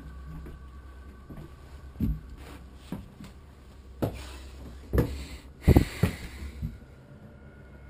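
Irregular dull thumps and knocks of someone moving through a dark house, about seven in all, the loudest pair a little past the middle, over a faint steady hum.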